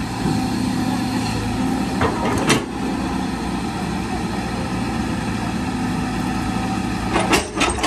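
Tracked hydraulic excavator's diesel engine running steadily while it works its bucket. A few sharp knocks come about two seconds in and again near the end.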